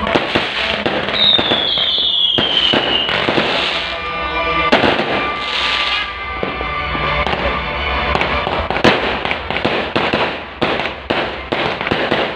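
Fireworks bursting and crackling in quick succession, with a high whistle that slides down in pitch about a second in.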